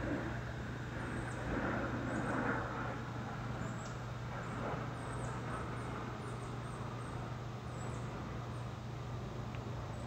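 Steady outdoor background noise with a low constant hum, and faint high chirps scattered through it.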